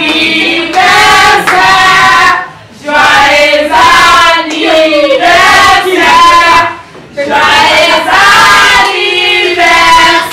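A group of voices singing loudly together in long held phrases, with two short pauses.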